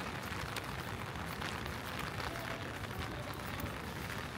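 Steady rain falling, with many small, sharp drop ticks close by over an even hiss.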